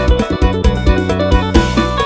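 Electronic organ (Electone) playing upbeat Thai procession dance music: a keyboard melody over a steady, driving bass beat.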